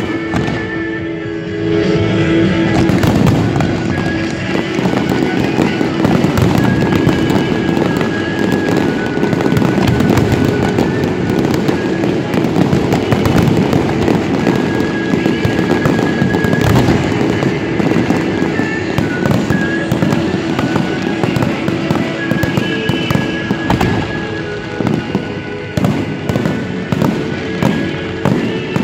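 Large fireworks display: dense, continuous crackling and bangs from many shells going off together, over music. Near the end the barrage thins out into separate bangs.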